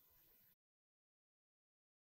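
Near silence: faint room tone that cuts off to complete silence about half a second in.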